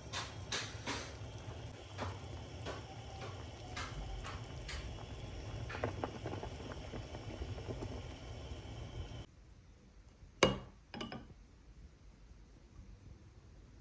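Pot of bitter-melon and meatball soup boiling on the stove, bubbling with scattered clinks and taps as a ladle stirs it. The bubbling cuts off suddenly about nine seconds in; a second later comes one sharp clink, then a fainter one.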